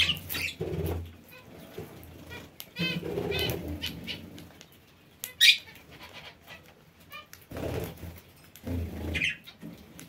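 Aviary parakeets: wings fluttering in short bursts, a rapid run of chattering chirps, and a single sharp high call about halfway through.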